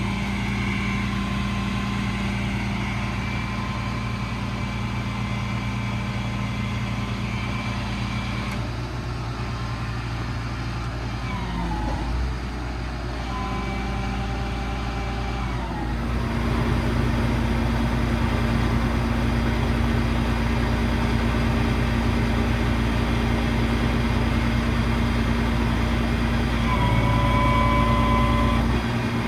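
Ford F-750's 5.9 Cummins diesel engine running, its pitch shifting a few times and getting louder about halfway through.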